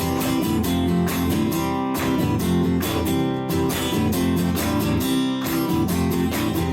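Guitar strummed in a steady rhythm, the instrumental intro of a song before the singing comes in.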